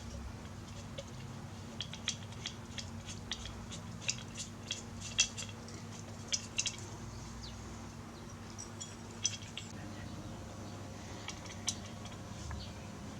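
Scattered light metallic clicks and clinks at irregular intervals: small parts and hand tools being handled while the line trimmer's exhaust muffler is reassembled.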